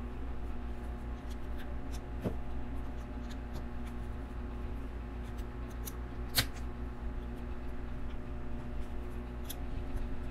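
Small plastic LEGO pieces being handled and snapped together, a scatter of light clicks with one sharper click about six seconds in, over a steady low hum.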